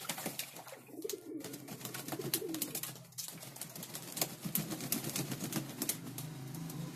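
Racing pigeons bathing in a shallow basin of water: repeated splashes and wing-beats in the water, over low pigeon cooing.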